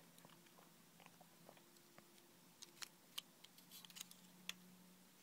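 Near silence with a few faint, sparse clicks and ticks of fingers handling and refitting the plastic parts of a Philips CD transport, mostly in the second half, over a faint steady low hum.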